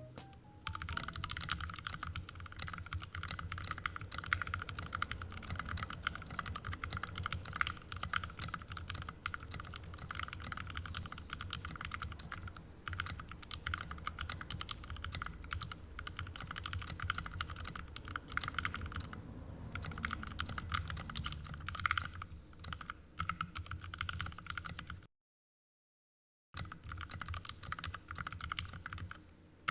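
Typing on a custom 65% mechanical keyboard with lubed Tealio V2 linear switches, PBT keycaps and an aluminium plate and case: a fast, continuous run of keystrokes. Late on, it drops out into total silence for about a second and a half, then the typing resumes.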